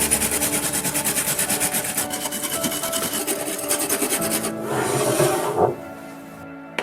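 Hand filing or sanding of a Ferrari 348 scale model car's body: quick back-and-forth scraping strokes, about six a second, for the first four seconds or so. A short hiss follows around the fifth second, then the scraping stops and faint steady tones remain.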